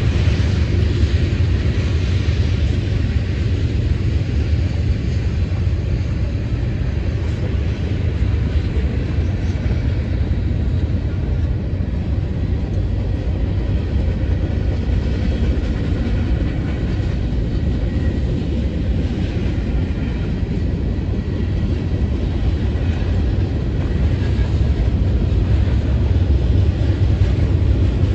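Freight train cars rolling past on the rails: a steady, loud rumble of wheels and car bodies going by, with no let-up.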